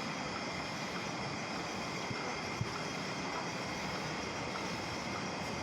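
Steady machine noise with a few faint high whines running through it, and a single sharp click about two and a half seconds in.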